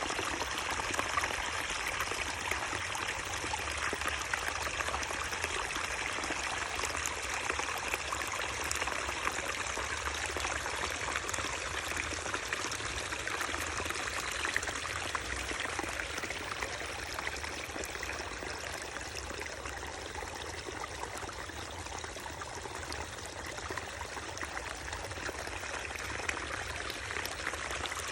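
Running water, flowing steadily with a fine splashing texture and no change in level.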